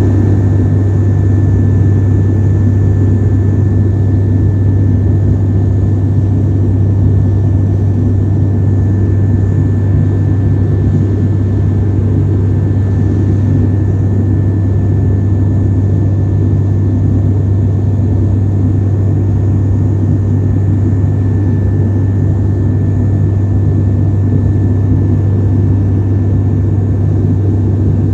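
Airplane cabin noise in flight: a loud, steady engine and airflow drone with a deep hum and a faint thin whine above it, heard from inside the cabin.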